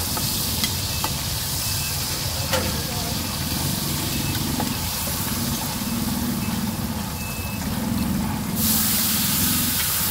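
Hot wok frying at a street-food stall: a steady sizzle over a low rumble, with background voices and a few sharp clicks of utensils. Near the end a loud hiss starts suddenly and holds.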